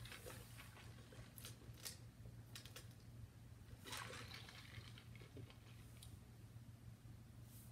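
Near silence: a low steady hum with a few faint clicks and rustles of movement, and a brief sip from a drink bottle about four seconds in.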